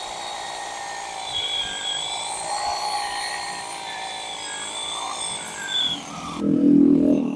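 Amaxtools A3CN28SM cordless brushless rotary hammer drilling into concrete paving with a 10 mm masonry bit, running with a steady whine. A brief louder, lower sound comes near the end.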